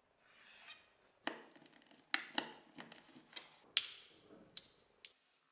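Hands handling tools and small hard objects on a wooden board: a soft scraping rub, then a run of sharp clicks and knocks with short ringing, the loudest about four seconds in.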